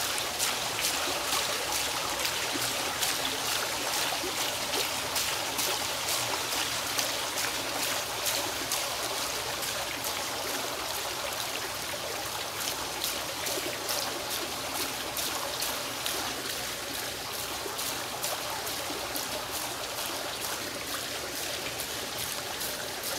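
Bowl fountain's bubbler jet splashing and trickling steadily, with many small splashes, a little quieter in the second half.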